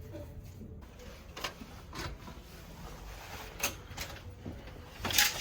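A few light clicks and knocks spaced about a second apart, then a louder, sharper knock near the end.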